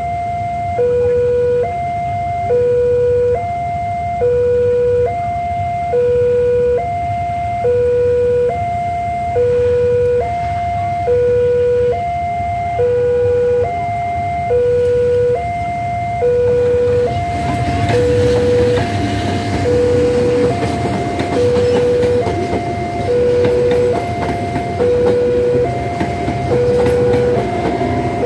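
Railway level-crossing warning alarm sounding an electronic two-tone chime, a high and a low note alternating about once a second. About 17 seconds in, a passenger train starts passing over the crossing, adding a steady rumble and rail noise under the alarm.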